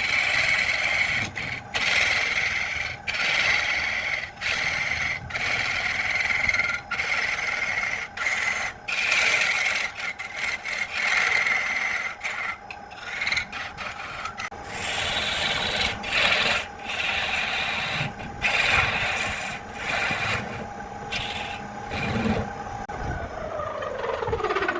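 A wood lathe runs with a steady motor tone while a tool or abrasive rubs against the spinning wood in repeated strokes, broken by short pauses. Near the end the rubbing stops and the machine winds down, its pitch falling as it slows.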